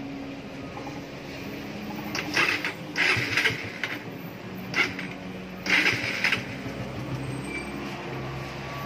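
Suzuki Raider 150's single-cylinder four-stroke engine idling steadily, with four short louder bursts of noise about two to six seconds in.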